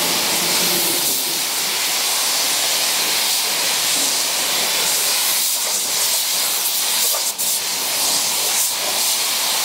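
Compressed-air paint spray gun spraying in a steady hiss, with a brief break in the spray about seven seconds in.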